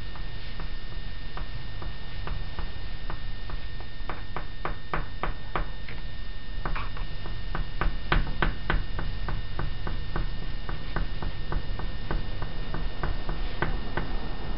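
Oil pastel sticks dabbing short dash strokes onto paper: a quick, uneven run of light ticks, about three or four a second through the middle and sparser toward the end. A steady low hum runs underneath.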